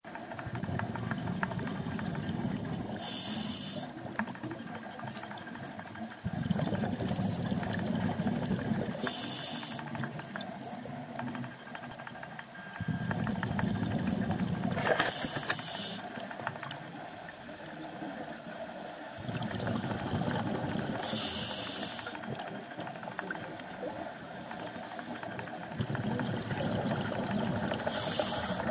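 Scuba diver breathing through an open-circuit regulator underwater. A short hiss of inhalation comes about every six seconds, five times, alternating with longer stretches of rumbling, bubbling exhaust.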